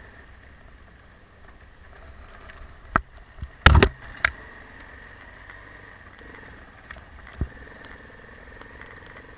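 Enduro motorcycle engine running at low speed on a snowy track, with a few sharp knocks from the bike and camera being jolted. The loudest is a quick double knock a little before the middle, with single knocks just before it, just after it and again near the end.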